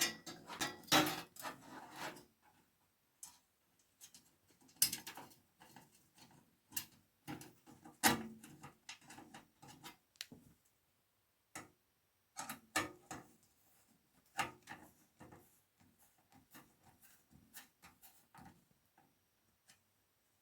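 Irregular clicks and light knocks of computer hardware being handled, as an SSD is fitted and fixed into a PC case, with a cluster of them in the first two seconds and scattered single knocks after.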